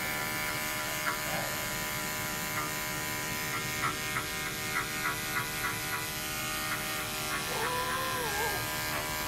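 Corded electric pet clippers running with a steady hum, shaving through a long-haired cat's heavily matted coat, with light irregular ticks.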